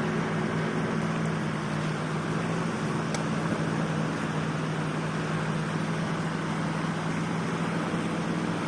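An engine running with a steady low drone under a constant rush of waves, surf and wind noise.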